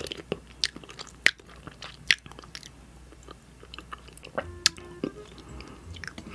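Close-miked eating sounds from a spoonful of hot sauce: scattered wet mouth clicks and lip smacks, some sharper than others, as she eats it off the spoon.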